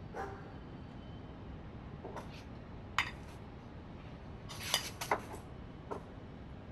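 Glass bottle and drinking glass clinking and knocking on a table as they are handled: a few scattered light clinks, with the loudest cluster a little over two-thirds of the way through.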